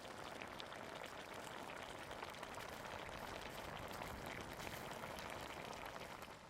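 Pork rib and pineapple soup boiling in a pot: a steady, dense crackle of small bubbles that cuts off suddenly near the end.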